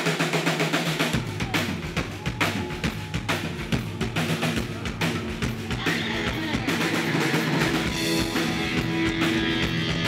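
Live rock band playing: a drum kit beating steadily under electric bass and electric guitar, with the low bass coming in about a second in.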